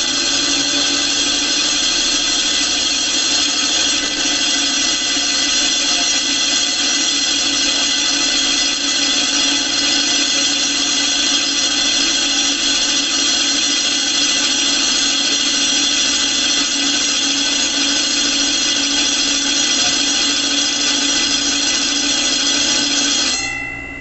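Gural cheese slicer's circular blade spinning on its motor while being sharpened against a grinding stone, throwing sparks: a steady, high-pitched grinding whine that dies away near the end.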